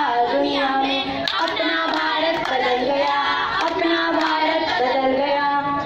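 Children singing a song, with hand claps; the singing stops right at the end.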